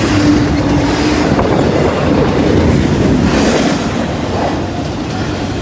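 CSX double-stack intermodal freight train passing at close range: steel wheels of the loaded well cars rolling loudly and steadily over the rails.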